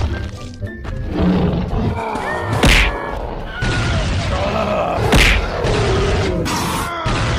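Cartoon fight soundtrack: background music with punch and impact sound effects, two loud hits standing out about two and a half seconds apart.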